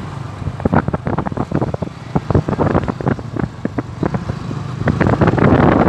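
Motorcycle running along on the road, with wind buffeting the microphone in irregular crackles; the rushing wind gets louder near the end.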